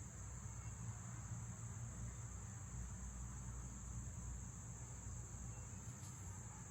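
A steady high-pitched tone over a low, steady hum, with no work sounds.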